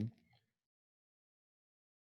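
Near silence: a dead-quiet pause in a man's speech, his last word trailing off at the very start.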